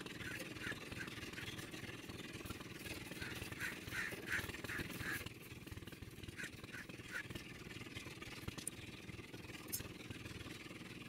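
A steady low engine drone, with short high chirps repeating about three times a second that stop about five seconds in.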